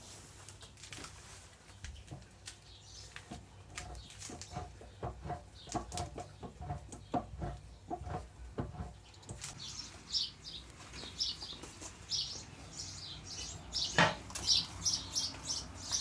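Light metallic clicks and knocks as the handwheel is fitted onto the machine's shaft. About halfway through, a small bird starts chirping again and again, and there is one sharp knock near the end.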